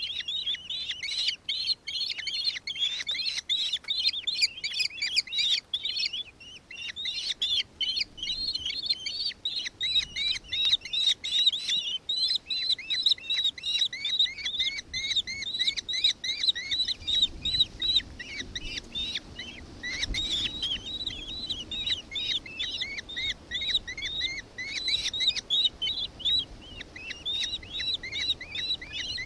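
Nankeen kestrels calling: a continuous stream of rapid, high-pitched repeated notes, several a second and overlapping, with a brief lull about six seconds in.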